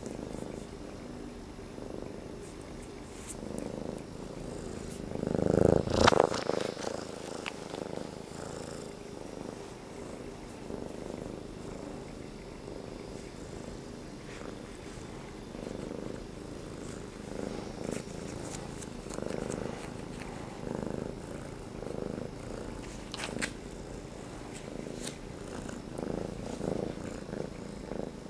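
A six-month-old gray tabby kitten purring steadily and rising and falling with each breath, about every second and a half. About six seconds in, a loud bump and rustle close to the microphone.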